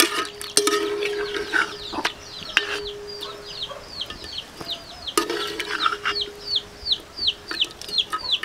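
Chickens cheeping: a run of short, high, falling chirps, about three a second, through the second half. A few sharp knocks of a metal spoon and strainer against an aluminium pot come earlier.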